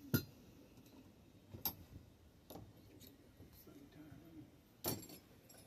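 A handful of separate sharp metal clicks and knocks, about five in all, the loudest right at the start and another near the end, from hand tools and bicycle parts being handled during a stem and handlebar swap.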